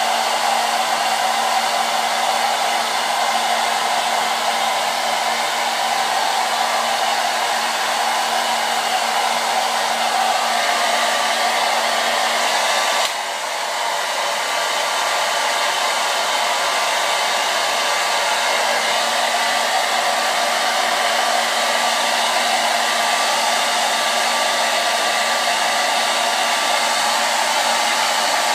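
Handheld hair dryer blowing steadily with a whirring hum, drying a damp beard and moustache. It briefly drops in level about halfway through, then carries on.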